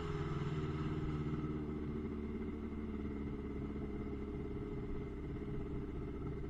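Jet ski engine running steadily at low revs after the throttle is let off, the craft slowing to a coast.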